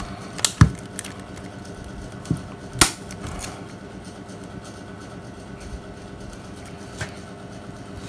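Plastic clicks and handling of a Nokia 7610 mobile phone as its back cover is pressed on. A few sharp clicks come in the first second, the loudest about three seconds in and a single faint click near seven seconds, over a steady low hum.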